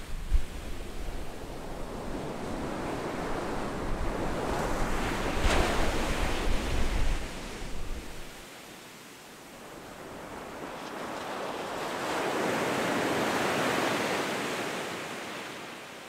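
Surf washing up a sandy beach, the rush of water swelling twice, about a third of the way in and again near the end. A low wind rumble on the microphone runs under the first half and stops about halfway.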